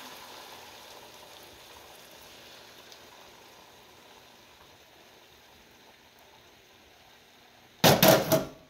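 Beaten eggs sizzling in a hot buttered frying pan, the sizzle dying away gradually as the eggs settle. Near the end, a wire whisk clatters loudly against the glass measuring cup in a quick run of knocks lasting about half a second.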